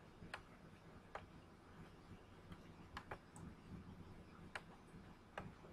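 About six sharp computer mouse clicks, irregularly spaced, over faint room tone.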